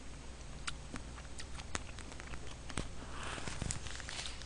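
Eating sounds close to the microphone: scattered sharp clicks and wet mouth sounds of chewing stew and rice, with a short noisy slurp about three seconds in.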